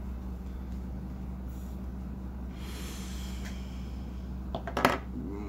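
A person's breath about three seconds in, then a short, loud cluster of clicks and a brief voiced noise near the end, over a steady low hum.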